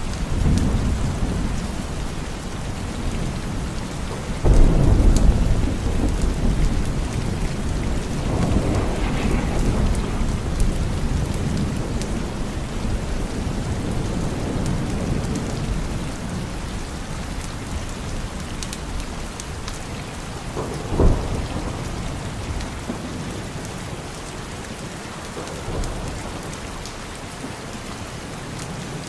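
Steady rain with thunder rolling through it: a loud clap about four and a half seconds in, further rumbling around nine seconds, a sharp crack about twenty-one seconds in, and a fainter rumble near the end.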